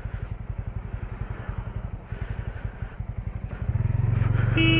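Motorcycle engine running while riding, a low rhythmic firing pulse that grows louder and steadier near the end as the engine picks up.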